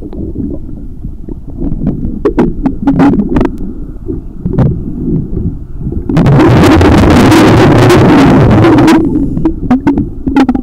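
Muffled underwater sound beside a boat's hull: a low rumble of water with scattered sharp clicks. About six seconds in comes a loud rush of exhaled bubbles from a diver, which lasts about three seconds and stops suddenly.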